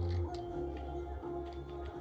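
Background music with long held bass notes, over a few light clicks of small tools and parts being handled.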